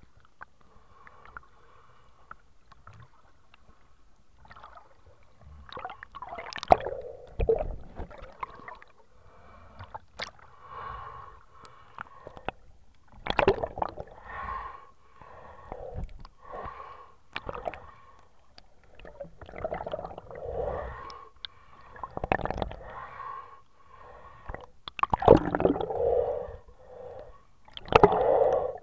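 Water sloshing and gurgling around an action camera held underwater, heard muffled through its housing, with swells about every one to two seconds and several sharp knocks against the case.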